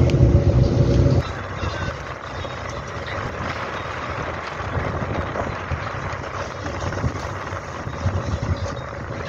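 A tour boat's engine runs with a steady hum, then cuts off abruptly about a second in. After that comes a quieter, steady rush of water churning past the boat, with the engine faint underneath.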